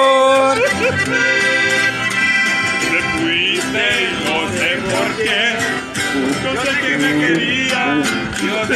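Live norteño music: an accordion plays the melody, with a passage of fast trills about halfway through, over a strummed acoustic guitar. No singing in this passage.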